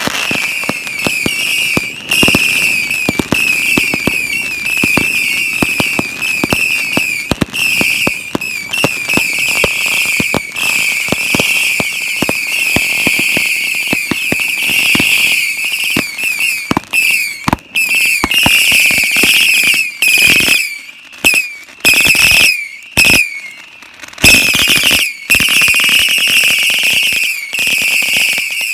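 Ground-fired firework batteries going off in a long barrage: a shrill, wavering whistling from whistle effects over rapid crackles and bangs. The whistling breaks into short gaps with single loud bangs about two-thirds through, then picks up again.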